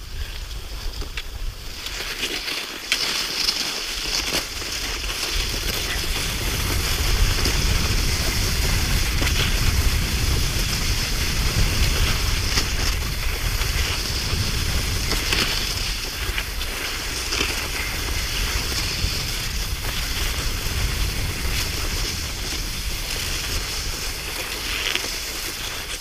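Wind buffeting the microphone in a low rumble that sets in about two seconds in, over a steady hiss scattered with small crunching clicks.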